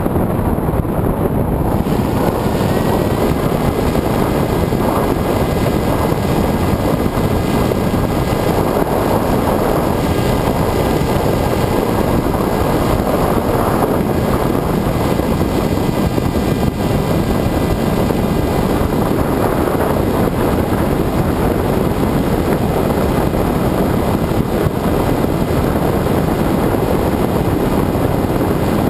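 Wind rushing over the onboard camera of a Multiplex EasyStar RC glider in flight, with the thin, steady whine of its electric motor and pusher propeller underneath. The whine comes in about two seconds in, steps up in pitch, then holds at about half throttle.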